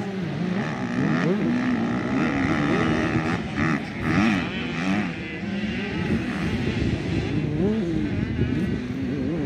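Motocross bike engine revving up and down repeatedly as the rider works the throttle, the pitch rising and falling every second or so.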